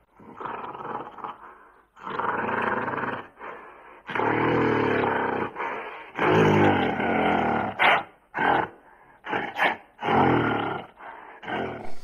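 Gorilla vocalizing: several rough, deep calls each about a second long, followed by a run of shorter, clipped calls near the end.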